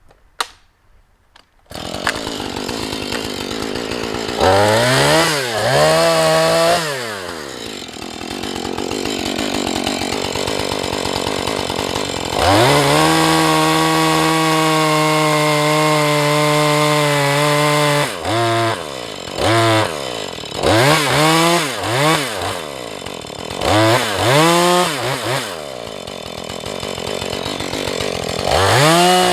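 Husqvarna 435 chainsaw's two-stroke engine, cutting a large felling notch (gob cut) in a tree trunk. It comes in about two seconds in at idle, revs up and down, holds a steady high whine under throttle for several seconds while cutting, then blips the throttle repeatedly and goes back to full throttle near the end.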